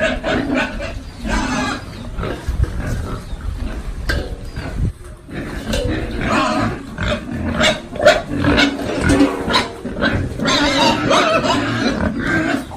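Pigs grunting, dense and irregular, with many short clicks and knocks mixed in, busiest in the second half.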